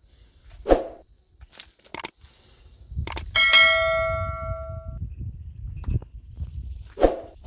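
Metal cookware struck once, ringing with a clear bell-like tone that fades over about a second and a half, among a few softer knocks and clatters.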